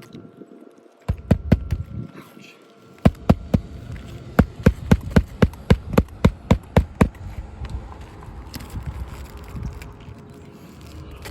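Hammer blows driving a crowbar under old 3-tab asphalt shingles to pull the nails: a few blows about a second in, then a quick regular run of about fourteen strikes, roughly three a second.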